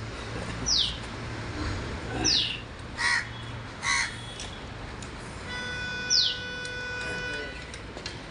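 Two crow caws, about three and four seconds in, among short high whistled notes that fall in pitch and repeat every couple of seconds.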